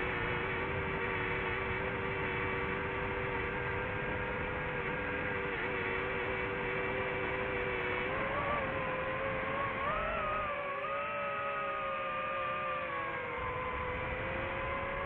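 DJI FPV drone's motors and propellers whining in flight. The whine holds a steady pitch at first, then shifts up and down through the second half as the throttle changes.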